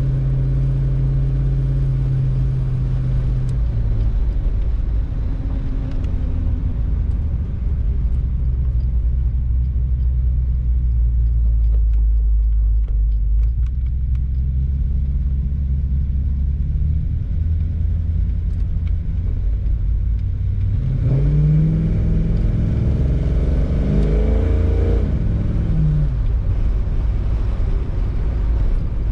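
1948 Ford's engine heard from inside the cabin while driving: a steady low rumble that eases off through the middle, as at a stop, then a rising engine note as the car accelerates away about three quarters of the way through.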